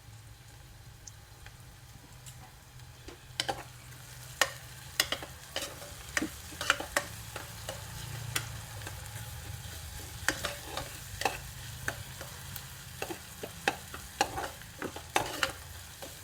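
Chopped onions frying in coconut oil in a pot, with a faint sizzle, stirred with a spoon that clicks and scrapes against the pot many times from about three seconds in.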